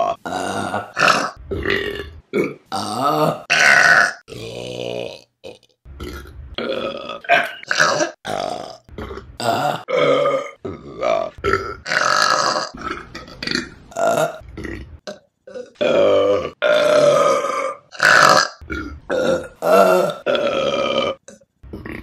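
Women burping, many burps in quick succession from different people, some short and some drawn out for about a second, with abrupt cuts between them.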